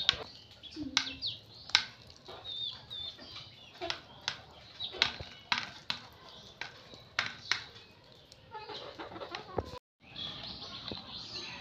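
Brahma chickens pecking feed from a steel bowl: irregular sharp taps of beaks on the metal, with a few soft clucks and short high chirps. Near the end, water swishing as a hand moves in a plastic mug.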